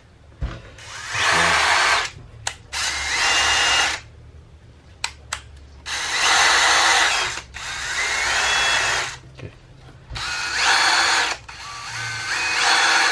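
Bosch GSR 10.8 V-EC brushless cordless drill/driver run in six short bursts of a second or two each. Its motor whine rises in pitch at the start of a burst as the trigger is squeezed, and there are a few short clicks in between.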